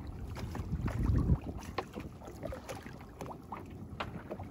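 Wet fishing net being hauled up over the side of a small boat: water dripping and splashing, with scattered small clicks and rustles as the mesh comes over the gunwale. A louder low rumble comes about a second in.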